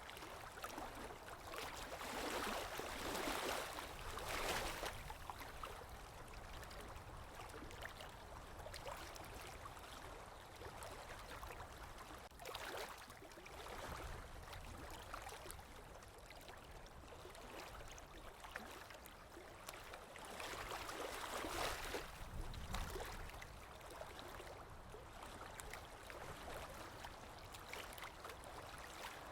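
Sea waves washing in on a shore, a steady rush of water with a few louder surges that swell and fade over a couple of seconds each.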